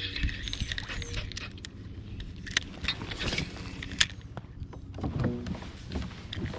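A few sharp knocks and clicks of fishing gear being handled in a kayak, over a low steady hum.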